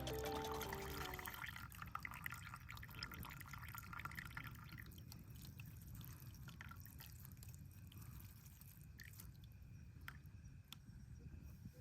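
Faint dripping and small liquid sounds with scattered light clicks over a low steady rumble, after background music fades out in the first second or so.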